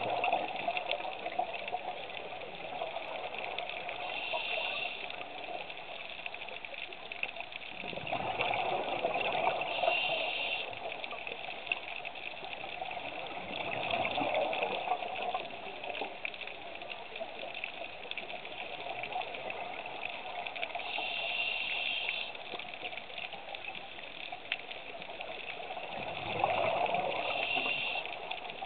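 A scuba diver breathing through a regulator underwater, in slow cycles: several bubbling exhalations a few seconds apart, with short hissing inhalations between them, over a steady underwater hiss.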